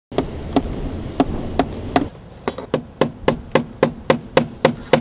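Hammer blows, a slow steady series at first, then a quicker run of about four strikes a second from about halfway in.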